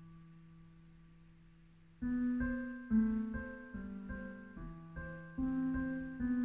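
Piano being played freely: a held chord dies away for the first two seconds, then a new note or chord sounds about every half second.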